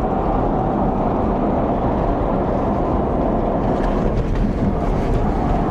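Steady, loud rumble of a moving car: road and wind noise.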